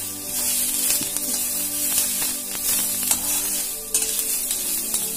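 Sliced onions sizzling as they fry in hot oil in a metal kadhai, being cooked until brown, with a metal spatula scraping and clicking against the pan as they are stirred.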